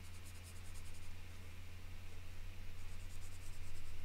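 Felt-tip marker scribbling on paper, quick back-and-forth scratchy strokes colouring in a small shape, over a steady low hum.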